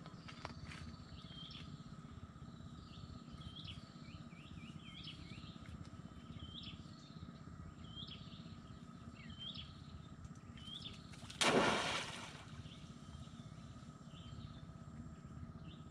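Birds calling with short chirps, about one a second, over steady outdoor background noise. About eleven seconds in, a crab trap thrown into the creek lands with one loud splash.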